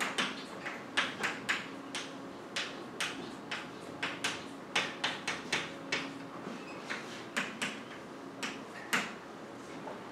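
Chalk writing on a blackboard: a rapid, irregular run of sharp taps and short scratches as words are written, thinning out after about eight seconds, with one louder tap near the end.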